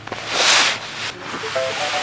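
Rustle of a sleeping bag's nylon fabric as it is pressed down into a stuff sack, loudest about half a second in. From about halfway through, background music with short, bright notes comes in.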